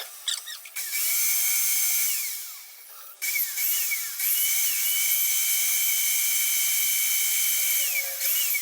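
Handheld electric power tool run twice, a short burst and then a longer run of about five seconds, each spinning up with a rising whine and winding down with a falling whine.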